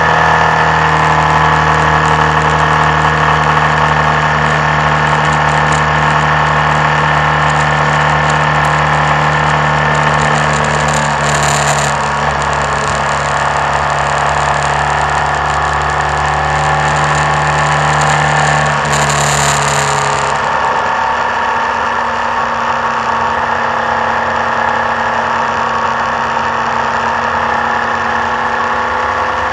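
Vehicle engine running steadily under way on a winding downhill road, over a constant rush of wind and road noise; the engine note drops a little about twenty seconds in.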